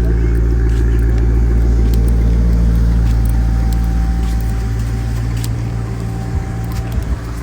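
Car engine and road rumble, steady and low with a hum, easing off over the last couple of seconds.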